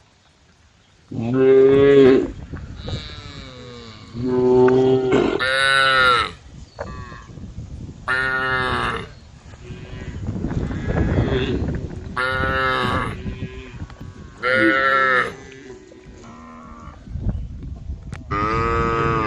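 Several cows mooing in turn, about seven drawn-out calls of differing pitch, some deeper and some higher, spread a second or two apart.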